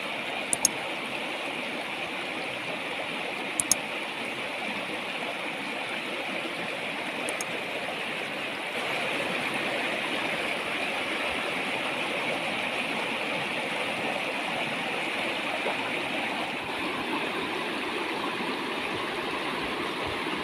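River water flowing steadily, a continuous rushing that gets slightly louder about nine seconds in, with three brief faint high-pitched ticks in the first eight seconds.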